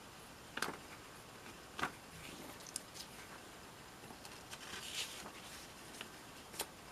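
Pages of a paper booklet being handled and turned by hand: a few sharp paper ticks and a longer soft rustle about five seconds in, as a page is turned over.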